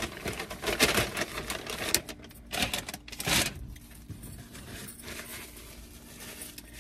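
Rustling and crinkling of a cardboard takeout box and paper packaging being handled and closed, in several short irregular bursts with a sharp click about two seconds in.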